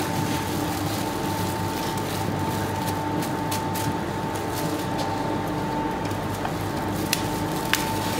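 Steady hum of bakery machinery with a constant high whine running through it, and a few sharp clicks or taps, two of them near the end.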